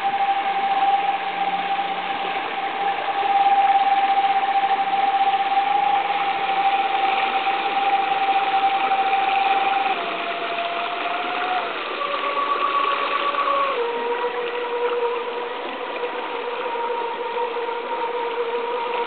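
Remote-controlled ARC survey boat's motors whining steadily, the pitch dropping in a few steps from about ten seconds in, over the rush of fast river water.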